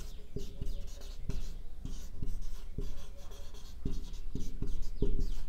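Marker pen writing on a whiteboard: a quick, irregular run of short strokes and squeaks of the tip as words are written out.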